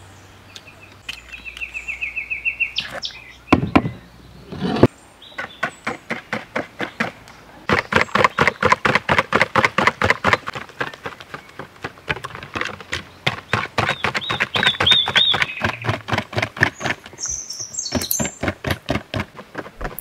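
Rapid, even chopping on a board, about four strokes a second, with two heavier thumps about four seconds in. Small birds chirp and trill over it.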